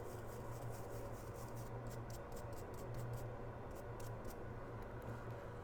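Faint, light scratching and clicking of small hand tools on an iPhone logic board, over a steady low hum.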